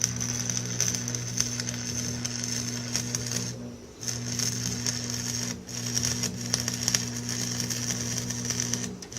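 Electric arc welding a steel patch into a tractor's rear wheel rim: a steady crackling buzz over a low hum, in runs of weld. It stops briefly just before 4 seconds in and again near the end.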